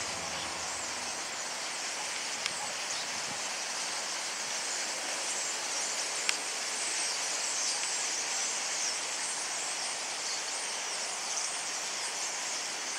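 Steady hissing din of a huge flock of common starlings gathering to roost in the reeds, thousands of calls and wingbeats blending into one high rush, with two faint clicks about two and a half and six seconds in.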